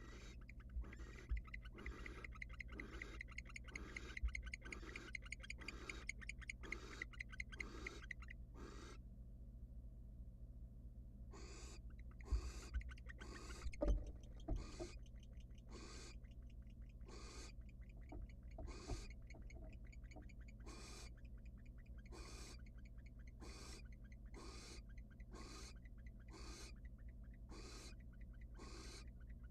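Barn owl hissing calls, short rasping screeches repeated about once a second, with a break of about two seconds about a third of the way in. A few sharp knocks stand out among them.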